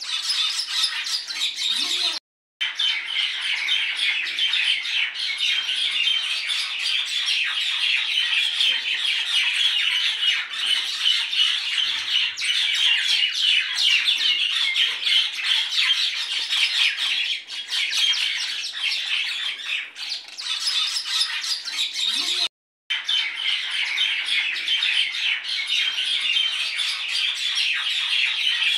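A dense chorus of many birds chirping and calling all together, with no let-up, cutting out abruptly for a moment about two seconds in and again about three-quarters of the way through.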